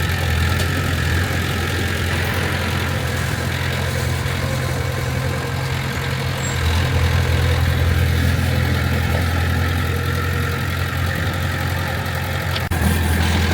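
Heavy diesel engine of earthmoving equipment running steadily with a deep, even hum.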